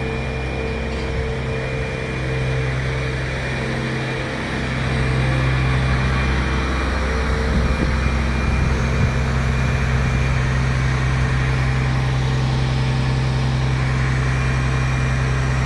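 Crane's engine running steadily, growing louder about four and a half seconds in.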